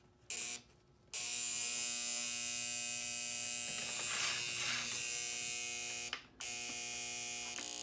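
Electric buzz from a Lionel No. 51 switcher on powered track, cutting out briefly twice in the first second and once about six seconds in, then coming back each time. The restorer reads this buzz as the E-unit not cycling.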